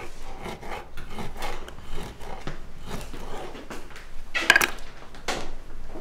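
A serrated kitchen knife cutting through a block of hard cheese, with repeated short strokes and taps on a wooden chopping board. A louder clatter comes about four and a half seconds in.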